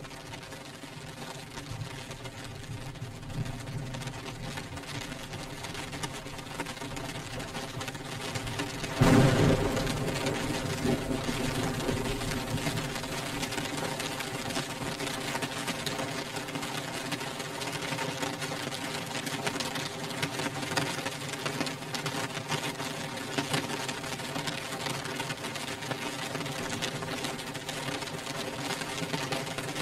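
Rain beating on a windowpane: a dense, steady patter of drops on glass. It swells suddenly louder about nine seconds in and eases off slowly.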